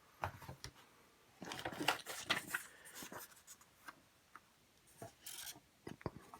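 Cardboard board-game pieces and punch-out sheets being handled, with rubbing, sliding and light clicking that is busiest in the first half and a short scrape about five seconds in.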